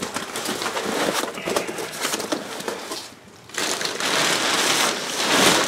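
Rustling and crinkling of clutter being handled and moved, with scattered small clicks; it stops briefly about three seconds in, then carries on.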